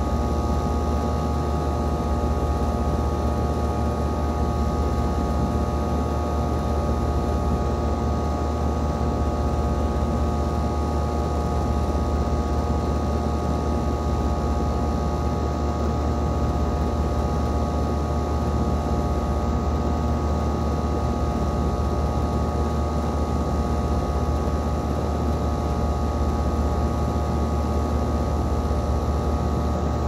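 Outdoor condensing unit of a 2013 Carrier Sentry central air conditioner running steadily: a deep, even hum with a few steady higher tones over a rushing fan noise.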